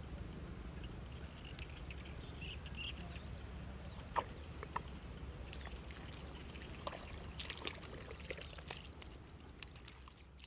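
Open-air field ambience: a steady low rumble with scattered short chirps and sharp clicks, fading out near the end.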